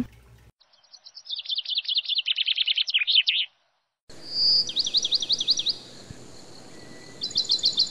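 Songbird singing rapid phrases of quick, repeated high notes. The song cuts off about three and a half seconds in. After a short silence a second stretch begins over a faint hiss: one held whistle, a run of quick down-slurred notes, and another fast run of notes near the end.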